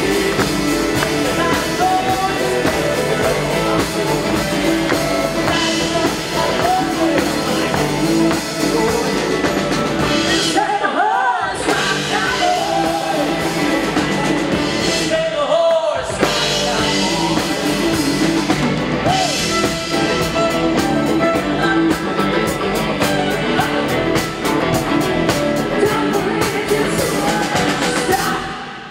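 Live country band playing an up-tempo song with a male lead vocal over drum kit and guitars. Twice near the middle the band drops out briefly, leaving the voice almost alone.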